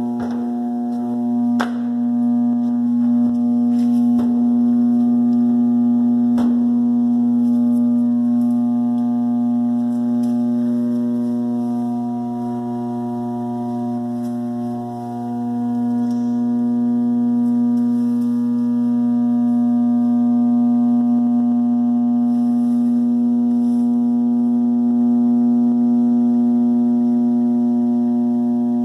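Furnace giving off a loud, steady electrical buzz, one pitch with many overtones, with a few sharp clicks in the first several seconds and a short dip about halfway through. This is not normal: the owner suspects the blower motor trying to start and having a tough time starting.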